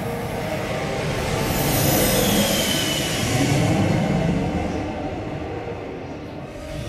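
Surround-sound demo soundtrack played over home-theater speakers and subwoofers: a heavy rumble and rushing noise that swells twice, with a short falling whine about halfway through.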